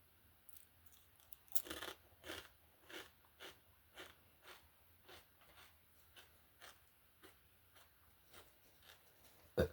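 A potato chip bitten with a loud crunch, then chewed in crunches about twice a second that fade as it is eaten. A single sharp thump near the end.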